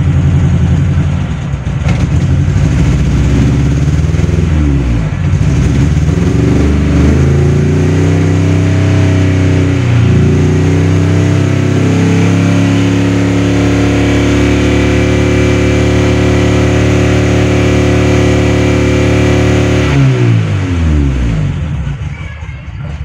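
Old car's petrol engine running and being revved while its battery charge is checked: the revs waver and climb for several seconds, hold steady at a raised speed, then drop back toward idle a couple of seconds before the end. The raised revs lift the charging voltage a little above 12 volts on a weak battery.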